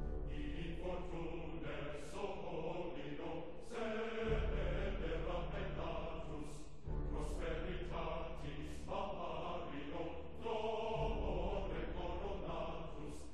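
Music with chanted, choir-like vocals over a held bass line that changes note every few seconds.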